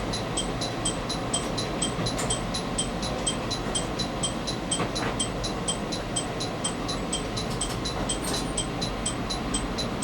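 Diesel limited-express railcar running with a steady low rumble, over a rapid high-pitched chirp that repeats evenly about four times a second.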